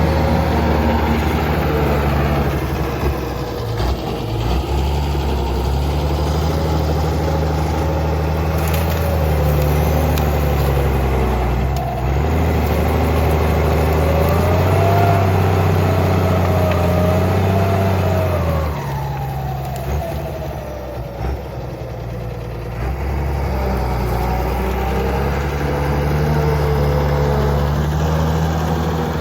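CBT 1105 tractor's Mercedes-Benz OM 366 six-cylinder diesel engine running steadily under work, its pitch rising and wavering about halfway through, then dropping and easing briefly before settling back to a steady run.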